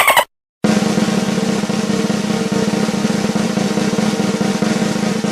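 Snare drum roll sound effect, a fast, even roll that starts about half a second in after a brief silence and holds steady.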